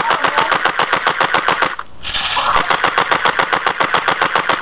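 2808 M4 electric airsoft gun firing full-auto, a rapid even clatter of about a dozen shots a second. It breaks off briefly just under two seconds in, where a short louder rush of noise cuts in, then fires again before stopping.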